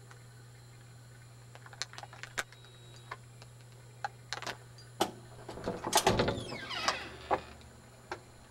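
Close clicks and knocks of a camcorder being handled, then a sliding screen door rattling and scraping open about six seconds in, the loudest part.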